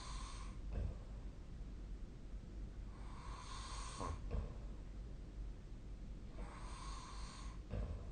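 A sleeping person snoring: three breaths about three and a half seconds apart, each a breathy hiss lasting about a second, followed by a short, low snort.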